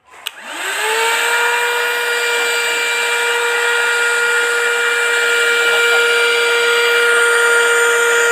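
Gemei cordless handheld vacuum cleaner switched on with a click. Its motor spins up in a rising whine within about a second, then runs at a steady high whine with rushing air.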